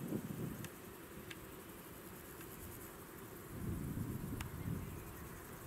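Low, gusting rumble of wind buffeting the microphone, easing off and swelling again about two-thirds of the way through, with a few faint sharp clicks.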